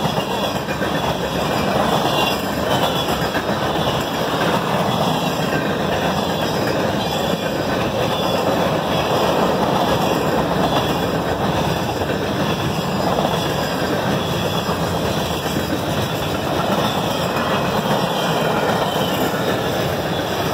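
Freight train cars rolling past at close range: the steady, continuous noise of steel wheels running on the rails.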